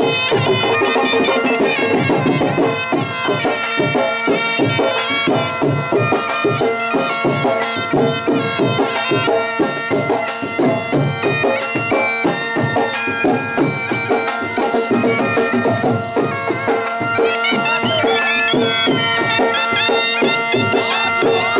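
Loud traditional folk dance music: a reedy wind instrument plays a wavering, ornamented melody over a steady drone, with quick drum beats.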